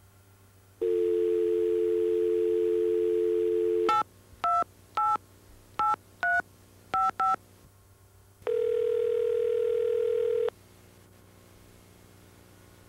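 Landline telephone call being placed: a steady dial tone for about three seconds, then seven quick touch-tone keypad beeps as a number is dialed, then one two-second ring of the ringing tone while the call connects.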